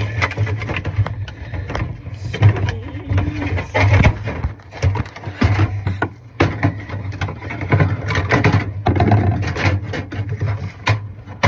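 Irregular clicks, knocks and rattles of hard plastic and metal refrigerator parts being handled and fitted, over a steady low hum.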